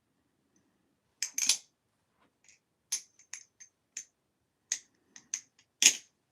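Flytanium balisong (butterfly knife) being handled, its handles clicking: about a dozen sharp clicks at irregular spacing, the loudest near the end.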